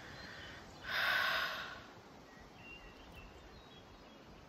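A single breathy exhale about a second in, lasting under a second, over quiet forest ambience, followed by a few faint, short high chirps.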